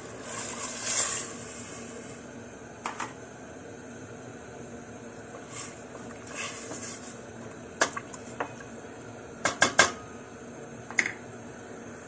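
Water poured into a stainless steel pot, with a brief splashing rush in the first second. A wooden spoon then stirs and knocks against the pot's sides several times, including a quick run of three knocks about two seconds before the end.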